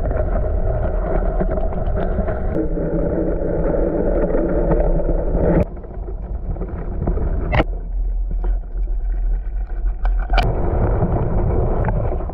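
Muffled underwater water noise picked up by a submerged camera: a steady low rush and rumble as a spinner lure is reeled past, breaking briefly about five and a half seconds in, with a couple of sharp clicks later.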